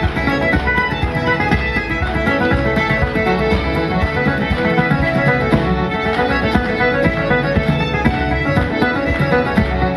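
Irish traditional band playing a reel live: fiddle and piano accordion on the tune, with banjo, acoustic guitar and bodhrán keeping a steady driving beat.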